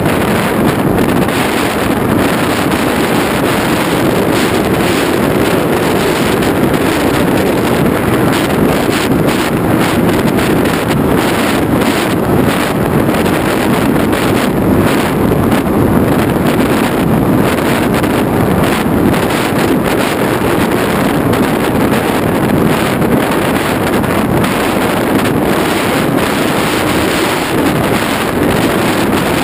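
Steady rush of airflow over a camera riding on a Skysurfer RC foam plane in flight, blended with the drone of the plane's electric motor and propeller.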